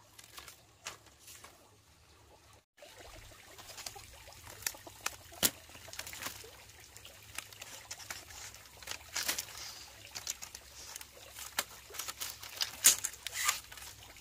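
Split bamboo strips clattering and scraping against each other and the dry ground as they are picked up and laid crosswise into a weave: a run of light clicks and taps, busier after the first few seconds, with the loudest knocks near the end.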